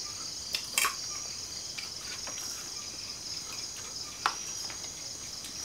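A steady, high-pitched chorus of night insects such as crickets, with a few sharp clinks of spoons on plates, the clearest just under a second in and about four seconds in.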